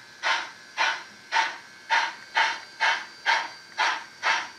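ESU LokSound sound decoder in an HO-scale Canadian Pacific H1b Hudson model, playing steam exhaust chuffs through the model's onboard speaker as the locomotive runs. The chuffs come in an even beat of about two a second.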